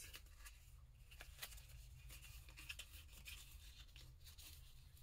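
Near silence: room tone with a low steady hum and a few faint scattered ticks and rustles.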